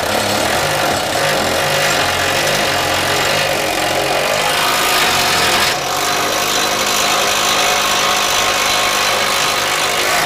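DeWalt cordless drill driving a 19 mm socket, running steadily to spin a bracket bolt down tight, with a short change in its sound a little over halfway through.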